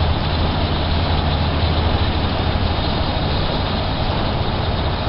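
Steady road and engine noise of a car driving, heard from inside the cabin, with a constant low hum under an even rush.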